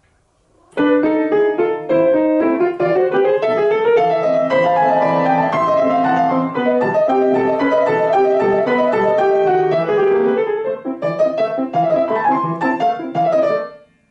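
Grand piano being played: a continuous passage of chords and melody that starts about a second in and stops shortly before the end.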